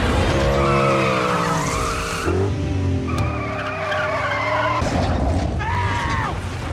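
Car engines revving and tyres squealing in a wheelspin. The sound comes in suddenly and loud, with long squeals that glide in pitch and a fresh burst near the end.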